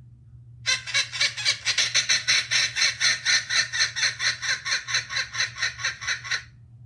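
Cartoon kookaburra laugh sound effect: a rapid, even run of laughing call notes, about five or six a second, starting just under a second in and stopping near the end.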